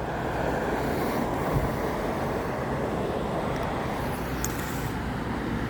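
Steady rushing background noise.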